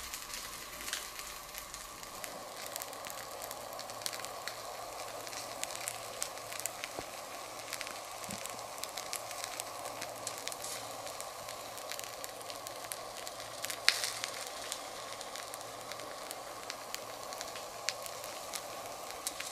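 Honey sizzling and crackling against a red-hot metal ball: a steady hiss dotted with frequent sharp pops, and one louder pop about fourteen seconds in.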